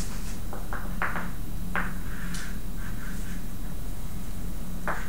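Chalk on a blackboard: a few short taps and scraping strokes as lines are drawn, spread through the first half and again near the end. A steady low hum runs underneath.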